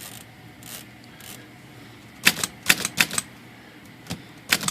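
Underwood four-bank manual typewriter being typed on: typebars strike the platen in an uneven run of about seven sharp clacks, bunched from about two seconds in, after a few soft strokes at the start.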